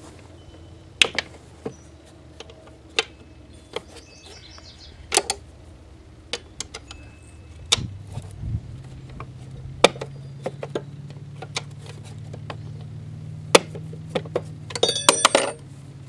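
Hand tools on a lawn mower engine: scattered sharp metal clicks and taps, then a burst of ringing metal-on-metal clinking near the end as the wrenches knock together, over a low steady hum.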